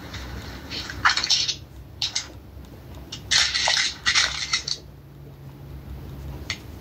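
Book pages being turned and rustled in several short crackly bursts, the longest a little past the middle, over a faint low hum.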